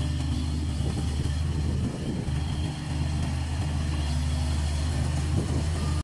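Engine of a stand-on mini track loader running steadily as the machine drives, with a short dip in level about two seconds in.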